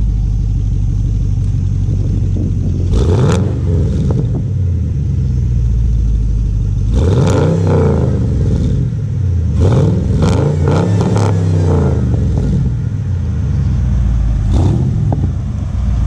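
Camaro SS 6.2 L V8 through its stock exhaust with the resonator deleted, idling and revved in short blips: once about three seconds in, again around seven seconds, several quick blips in a row from about nine and a half to twelve seconds, and once more near the end, each time the pitch rising and falling back to idle.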